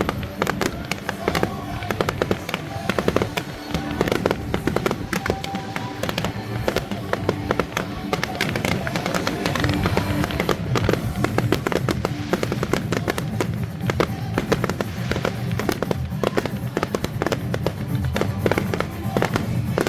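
Fireworks going off in rapid succession, a dense run of bangs and crackles, with music playing underneath.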